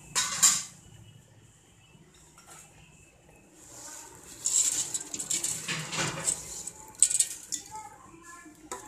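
Metal spoon clinking and scraping against a steel pot of boiling milk, as vermicelli is stirred in: a clatter right at the start, then a run of clinks and scrapes in the middle.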